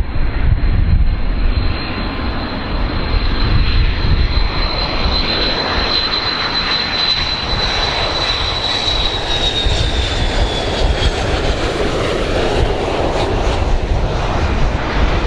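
Boeing 727's three JT8D turbofan engines passing on landing approach: a steady jet roar with deep rumble and a high whine that slides lower and fades about ten seconds in.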